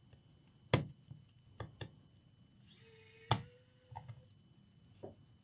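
A few sharp, separate knocks and clicks of a laptop and its plastic case being handled and set down on a workbench, with a faint steady tone briefly in the middle.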